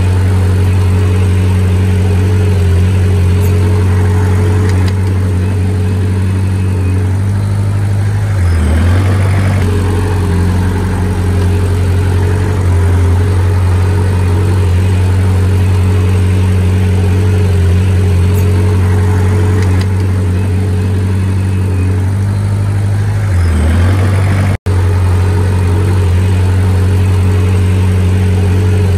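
Heavy diesel engine of an earthmoving machine running steadily, its pitch dipping briefly twice.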